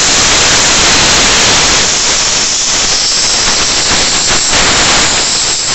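Aluminium pressure cooker whistling: steam forced up past the weight valve in a loud, steady hiss that cuts off suddenly near the end. The cooker has come up to full pressure and is venting.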